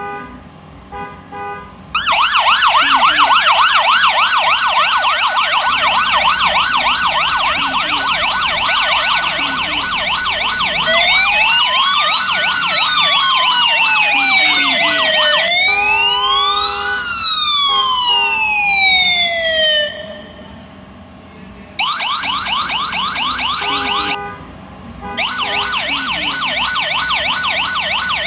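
Electronic siren cycling through its tones. It opens with short beeps, switches to a fast warble about two seconds in, then to a slow rising and falling wail. After a brief drop near twenty seconds it returns to the warble, with a short burst of beeps between.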